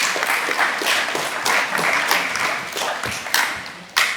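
Audience applauding, thinning out near the end to a few scattered claps.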